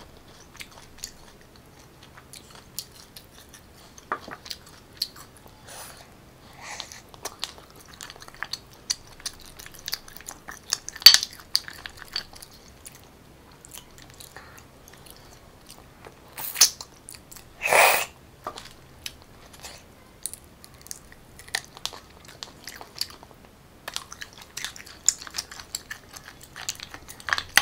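Close-miked eating of garlic-butter sea snails: soft chewing with scattered small clicks as toothpicks and snail shells are handled over the plate. A few louder, short noises stand out around the middle.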